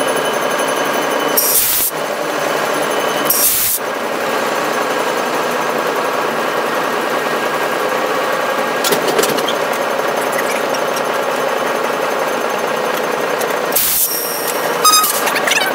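Steady running noise inside a moving locomotive's cab, with several steady whining tones over it. Short loud bursts come twice in the first four seconds and once near the end.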